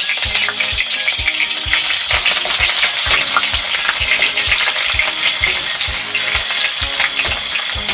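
Food sizzling in hot oil in a pan while being stirred, with a steady hiss and evenly spaced knocks of the stirring spoon.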